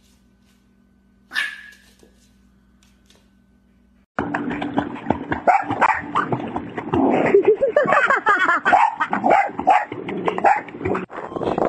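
A dog barking and yelping amid loud splashing water in a swimming pool. The splashing starts suddenly about four seconds in. Before it there is a single short, high yip about a second in.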